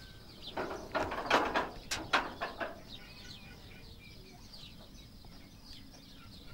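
Chickens squawking in a brief loud flurry a little over half a second in, lasting about two seconds, then small birds chirping faintly with short falling notes.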